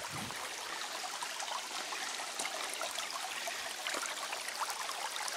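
Small shallow woodland stream running over stones: a steady sound of flowing water.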